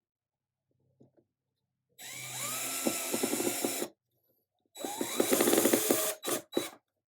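Handheld power drill running in two bursts of about two seconds and a second and a half, each spinning up with a rising whine, then two quick short blips of the trigger near the end.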